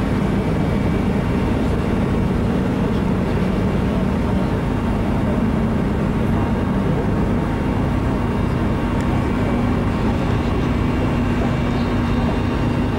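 Steady low rumble of wind on the microphone on the open deck of a cruise ship under way, with a low droning hum from the ship's machinery that shifts slightly in pitch about halfway through.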